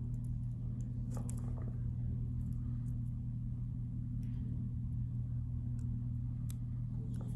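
Steady low electrical hum, with a few faint light clicks and rustles from handling the fly at the tying vise.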